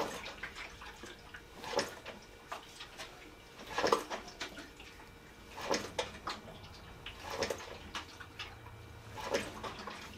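Front forks of a Yamaha V-Star 1300 being pushed down and let back up by hand, about every two seconds, each stroke giving a short swish. The bike's front end is being bounced to settle the forks after they were refilled with fresh fork oil and reinstalled.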